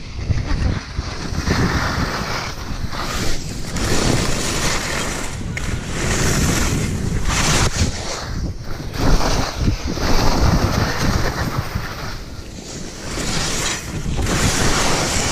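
Wind rushing over the microphone of a camera carried by a downhill skier, mixed with the hiss and scrape of skis on snow, swelling and easing every second or two.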